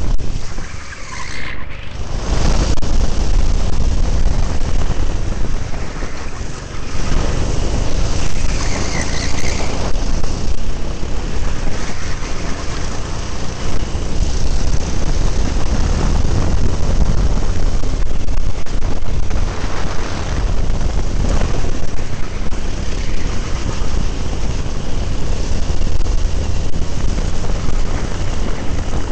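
Go-kart engine running hard at racing speed, heard from the kart itself, with heavy rumble and wind buffeting on the microphone. The noise dips briefly about a second in and again around six and a half seconds in.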